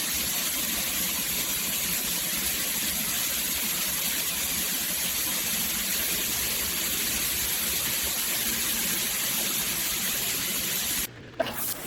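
Water pouring steadily from a square stainless-steel rainfall shower head. Near the end the sound cuts out for a moment, and a sharp click follows.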